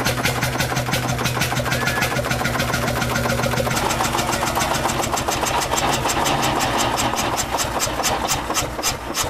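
Engine running with a fast, even knocking beat, about ten knocks a second. A steady low hum underneath stops about four seconds in.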